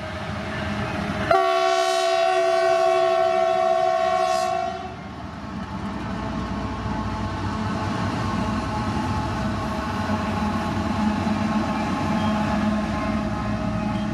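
Indian Railways WDG4G (GE-built, 12-cylinder GEVO diesel-electric) locomotive sounds its multi-note horn once, a chord of several notes held for about three and a half seconds starting about a second in. The diesel engine and running gear sound steadily around it, growing louder at first as the locomotive approaches.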